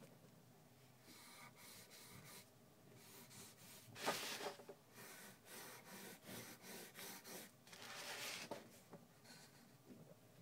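Wooden pencil sketching on paper: a run of faint scratchy strokes, the loudest about four seconds in and another long one near eight seconds.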